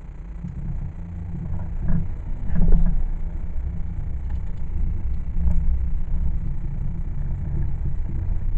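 Car engine and road rumble heard from inside the cabin while driving slowly, with a couple of short knocks about two to three seconds in.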